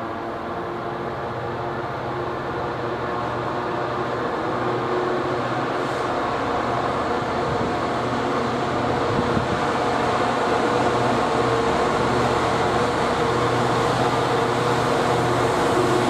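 Class 66 diesel-electric freight locomotive's EMD 12-cylinder two-stroke engine working under power as it approaches, a steady engine note growing louder throughout.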